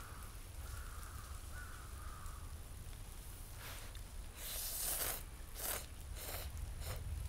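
A distant bird calling three times in short notes near the start, then a run of short crunching, rustling noises of movement in snow, the loudest about halfway through.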